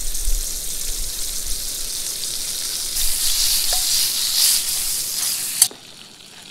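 Butter sizzling and frying as it melts in a hot pan over a camp stove. The sizzle grows louder about three seconds in, then cuts off abruptly near the end.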